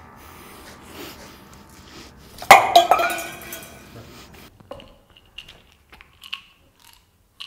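A single loud clang about two and a half seconds in, ringing on for about a second, followed by a few light clinks and taps.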